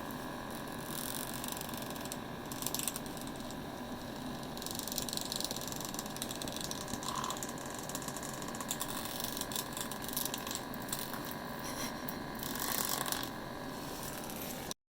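Electric massage machine vibrating with a steady buzzing rattle, cutting off suddenly near the end.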